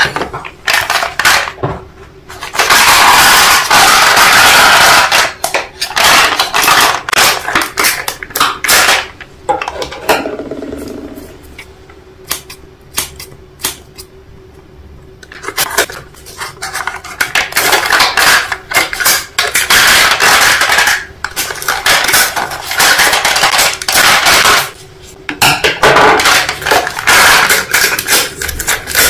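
Dense clattering and rattling of many small hard objects knocking together, in long spells broken by quieter gaps.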